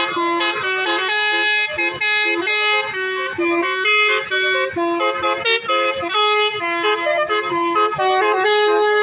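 A bus's basuri telolet horn playing a tune: a quick run of loud horn notes, each held a fraction of a second and stepping up and down in pitch with only brief gaps between them.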